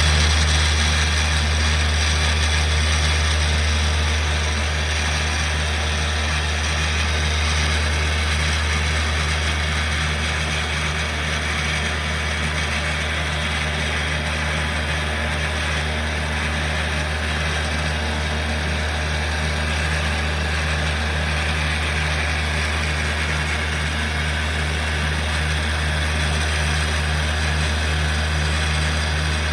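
A CNC machine running a free-running random-orbit polishing head with a foam pad and compound on aluminum: a steady low hum with an even hiss over it, unchanging throughout.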